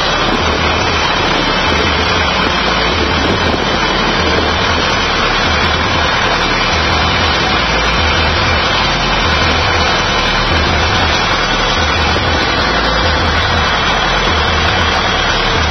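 Massey Ferguson tractor engine running steadily under way, heard up close from on the tractor, with a throbbing low end.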